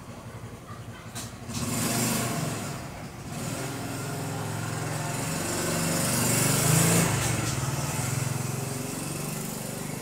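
A motor vehicle's engine passing by, growing louder to a peak about seven seconds in and then fading.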